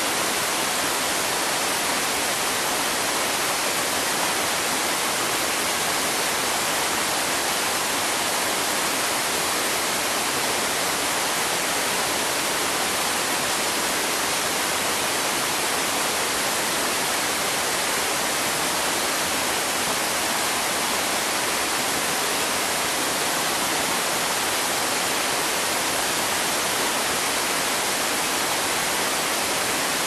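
A waterfall's steady rush of falling water, even in level, more hiss than low rumble.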